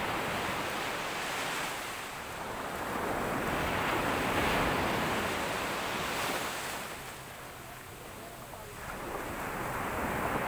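Surf breaking on a sandy beach: a steady rush of wave noise that swells to its loudest about halfway through, falls back for a second or two, then builds again as the next wave comes in.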